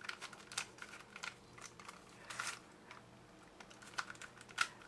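Square-2 twisty puzzle's plastic layers clicking and clacking as they are turned by hand: scattered faint clicks, with two sharper ones near the end.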